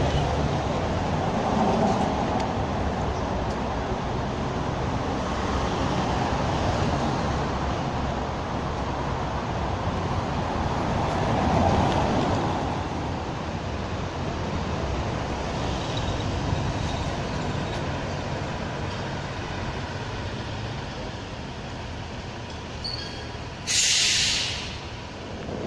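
Street traffic: vehicles passing on a cobblestone street, the noise swelling and fading as each one goes by. A short, sharp hiss comes near the end.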